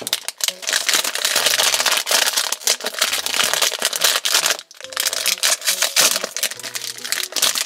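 A small cardboard blind box and the packaging inside it being torn and crinkled open by hand: a dense run of crackling, tearing and rustling, with a short pause about halfway through.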